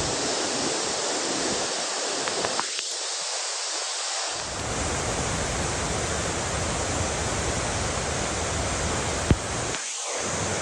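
Waterfall rushing steadily, a constant roar of falling water. A single sharp click sounds about nine seconds in.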